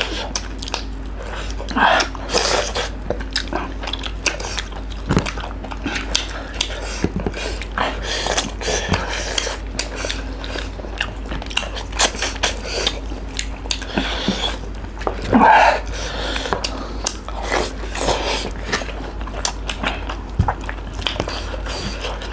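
People biting and chewing a meal of curry, rice and fried chicken, with many irregular short smacks and clicks and a couple of louder bursts. A steady low hum runs underneath.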